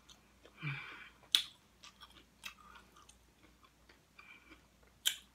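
Close-miked chewing and crunching of nachos made with Doritos tortilla chips. Scattered crunches with a sharp loud crunch about a second and a half in and another near the end, and a short breathy sound from the eater just under a second in.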